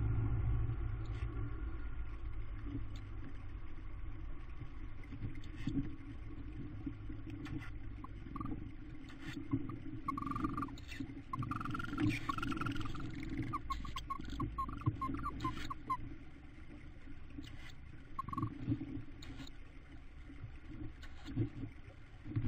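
Tawny owls in a nest box giving short, high-pitched calls, with a quick run of notes in the middle, over the rustling and scratching of feathers and wood-shavings nest litter as the adult shuffles among the chicks. A low rumble at the start fades away.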